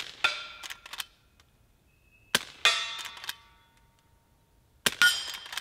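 Three quiet suppressed shots from a Henry Frontier .22 LR lever-action rifle firing subsonic standard-velocity rounds through a Silencer Co. Sparrow suppressor. Each shot is little more than the hammer falling. About a quarter second later comes the ringing clang of the bullet hitting a steel target downrange. A few small metallic clicks of the lever being worked follow the first two shots.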